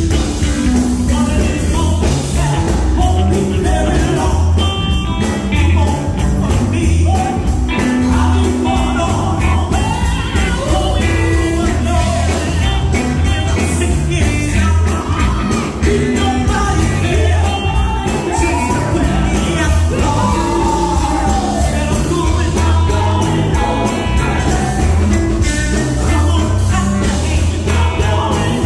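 Live gospel group singing with a band: female lead and backing vocalists through a loud PA over electric guitar and a heavy bass beat.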